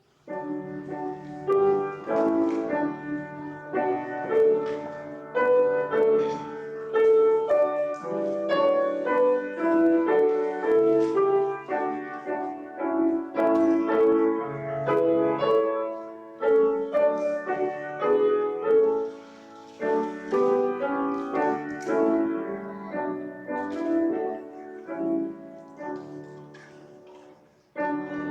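Piano playing a chordal piece with a melody over it, breaking off briefly near the end before playing on.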